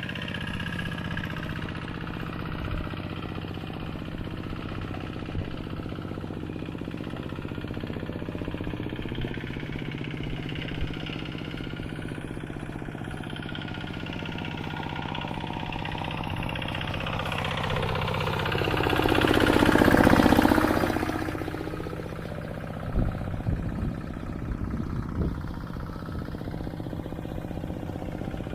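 Engine of a rice-paddy ploughing tractor running steadily. It grows louder as the tractor comes close about two-thirds of the way through, then fades again.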